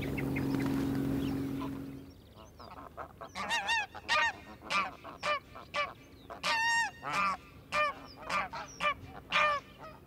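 A steady low hum for the first two seconds, then geese honking over and over from about three seconds in: a dozen or so short honks, with one longer call near the middle.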